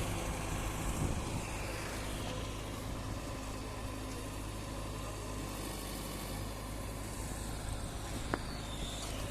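Heavy diesel engine of a bulldozer or JCB earthmover running steadily at low revs, with a deep even hum. A single short click about eight seconds in.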